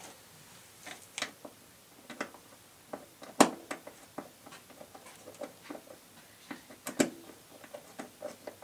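Irregular small clicks and knocks of hands working a wire loose at a jukebox amplifier's terminals, with two sharper clicks about three and a half seconds in and again near seven seconds.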